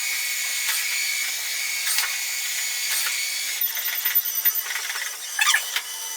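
Haier Xshuai robot vacuum running: a steady high-pitched whir from its motor and brushes, with scattered clicks and a brief cluster of louder clicks and rattles about five and a half seconds in.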